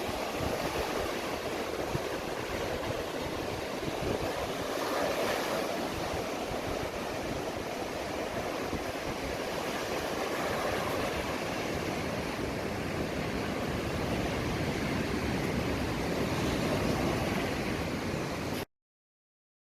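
Sea waves washing onto a beach: a steady rushing that swells and eases. It stops abruptly near the end.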